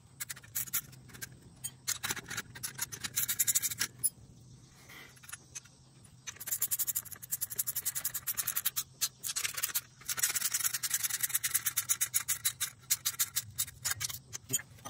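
Rapid runs of sharp clicks and scraping from hand work at the chrome exhaust header pipe's fitting on the cylinder head, with a quieter pause around 4 to 6 seconds in.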